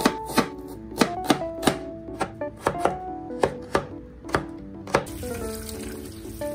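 Kitchen knife chopping red onion and carrot on a plastic cutting board: about a dozen sharp knocks at an uneven pace, two or three a second. The chopping stops about five seconds in, and tap water runs into a steel sink over a colander of green beans. Soft background music plays underneath.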